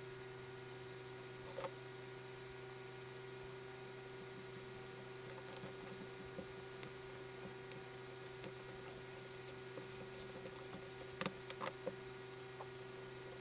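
Steady low electrical hum with faint scratching and ticking of a tool working kinetic sand, sped up. There is a small tick about a second and a half in, and a quick cluster of sharper clicks near the end.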